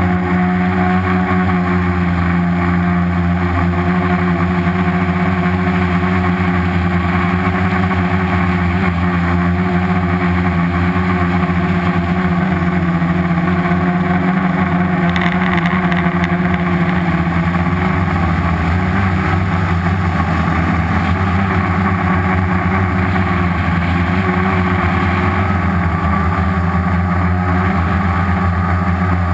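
Homemade quadcopter's four Turnigy 2217 1050 kV brushless outrunner motors spinning 10-inch props in flight, a loud, steady buzz heard close up from the camera on the craft.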